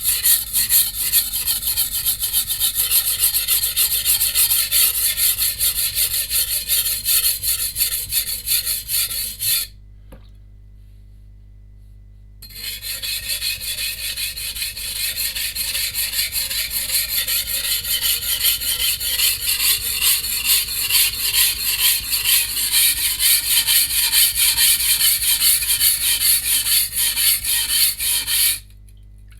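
A Shun VG10 steel Chinese cleaver being ground back and forth on a wet coarse whetstone, in quick, even scraping strokes, to grind out chips in the edge. The strokes pause for a few seconds about ten seconds in, and again just before the end.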